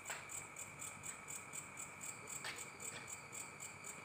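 Insects chirping in a steady pulsing rhythm, about four high pulses a second, over a thin steady high drone. Two sharp clicks of a badminton racket striking the shuttlecock, at the start and about two and a half seconds in.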